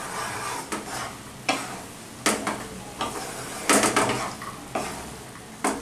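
A spatula stirs and scrapes through ash gourd (chal kumro) and potato curry in a non-stick kadai, in a series of short strokes about a second apart. Under the strokes the vegetables sizzle gently in the water they have released on the flame.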